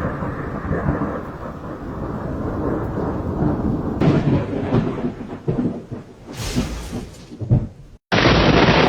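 Thunder rumbling and rolling, with a few sharper claps about four to five seconds in. It drops out briefly near the end and comes back louder.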